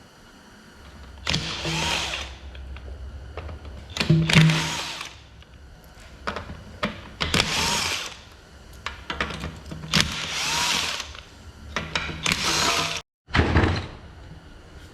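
A handheld power tool, such as a cordless drill or driver, spinning out bolts in about six short runs of roughly a second each with pauses between, most likely the transmission pan bolts coming out.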